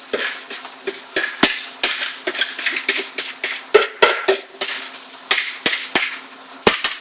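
Irregular sharp knocks and clatters, two or three a second, of a mixing bowl tapped and shaken against a steel saucepan to empty a cheese mixture onto mashed potato.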